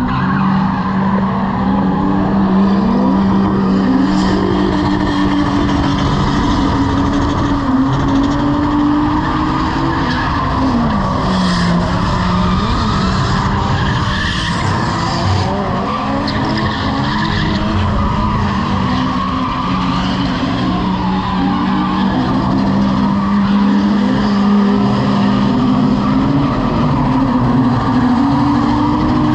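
Drift car's engine held high in the revs, its pitch wavering as the throttle is worked and dipping briefly about eleven seconds in, over the steady noise of tyres skidding sideways.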